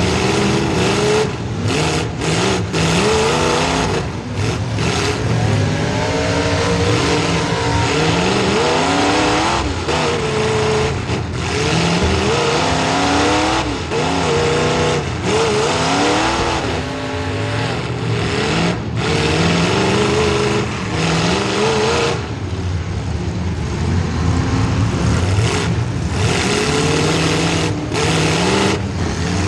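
Demolition derby car's small-block Chevy V8 revving up and down again and again, heard from on board. The sound briefly cuts out many times.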